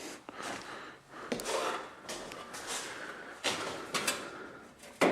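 Rummaging and handling noises: objects being shifted and scraped, with several sharp knocks and clicks in the second half.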